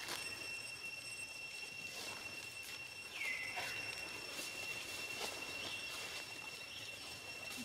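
Outdoor ambience with a steady high-pitched tone, scattered light rustling clicks, and one short falling squeak about three seconds in.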